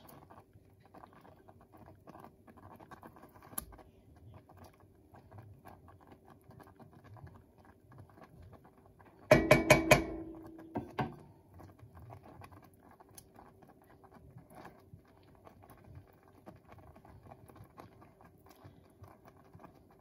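Thick sawmill gravy simmering in a cast iron skillet with many soft little pops, over a faint steady hum. About nine seconds in comes a short burst of loud knocks, and a lighter one a second later.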